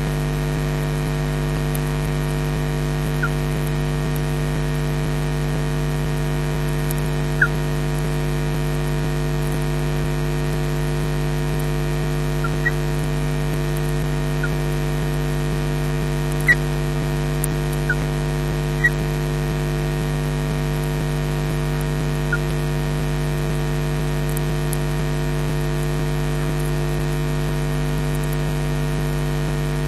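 Steady electrical hum with hiss, a stack of even low tones that never changes, as carried on a nest webcam's audio line. About ten very short, faint high chirps are scattered through it.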